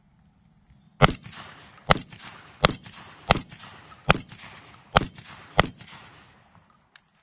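Seven rapid shots from a Black Aces Tactical SMAX semi-automatic 12-gauge shotgun, a little under a second apart, starting about a second in. The light 1 1/8-ounce No. 7.5 birdshot loads cycle the action through all seven rounds without a malfunction.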